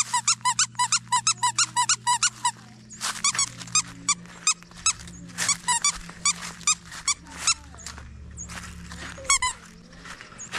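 Squeaker in a plush toy squeezed over and over: short, high squeaks, fast and even at about six a second for the first couple of seconds, then in looser, uneven runs.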